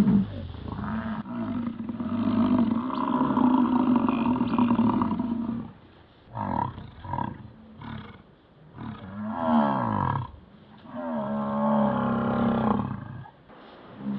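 American bison bulls bellowing in the rut: a long, low bellow of about five seconds, then shorter calls, and two more long bellows in the second half.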